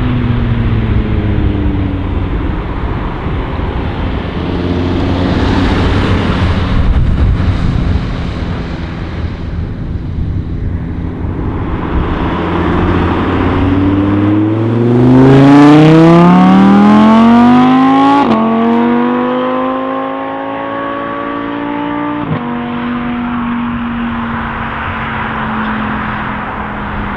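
Audi R8's V10 engine running low at first, then accelerating hard with the revs climbing steeply, upshifting with a sudden drop in pitch about halfway through and again some four seconds later, then holding a steady cruise as the car moves away.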